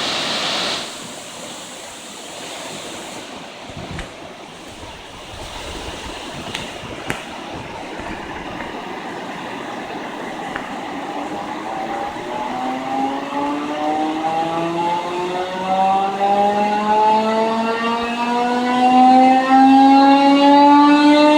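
Dam water-discharge warning siren starting up, the signal that water is being released upstream: after a stretch of steady background hiss, a low tone comes in a little past halfway and slowly climbs in pitch while growing louder.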